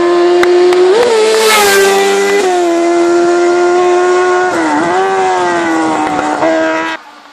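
Race car engine at high revs, holding a steady high note. Its pitch jumps briefly about a second in, two and a half seconds in and near five seconds. The engine sound cuts off suddenly near the end.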